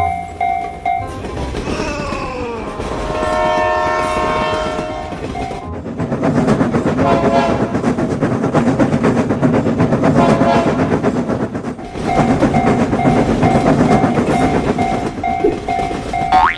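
Railroad crossing bell ringing in a steady repeated tone. A train horn then sounds, and a passing train clatters over the rail joints for several seconds. The crossing bell rings again near the end.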